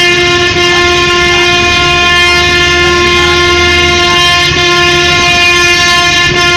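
A vehicle horn held down in one long, continuous blare at a single steady pitch, very loud, over low engine and road rumble.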